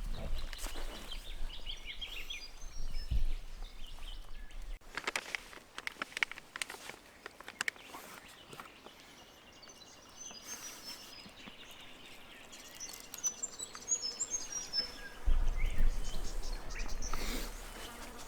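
Bird calls in the bush, two short runs of quick high chirps, over a steady outdoor hum of insects. Scattered rustles and knocks are mixed in, with a low rumble at the start and again near the end.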